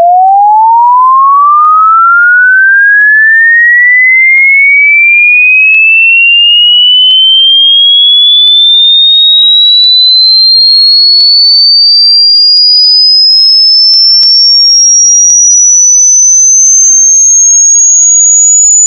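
A synthesized pure sine test tone sweeping smoothly and continuously upward in pitch, from a mid-range whistle to a high, thin tone. It is a headphone test signal meant to sound centred in the middle of the head.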